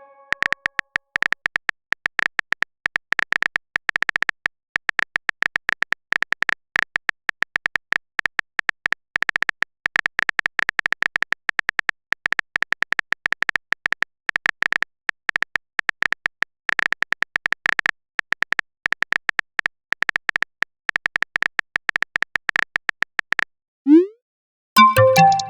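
Rapid, irregular clicks of a phone keyboard typing sound effect for most of the stretch, stopping about two seconds before the end. Then comes a short rising swoop and a chiming notification tone, like a message being sent.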